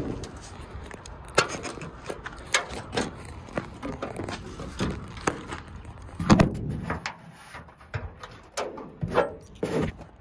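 Scattered knocks, clacks and scrapes of items being shifted and handled inside a truck's cabin. The loudest is a thump about six and a half seconds in, and a quick run of clacks comes near the end.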